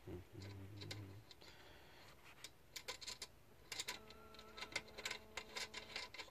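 Faint, scattered small metallic clicks and ticks of a nut and locking washer being worked by hand onto a power inverter's DC terminal bolt as a battery cable lug is fitted.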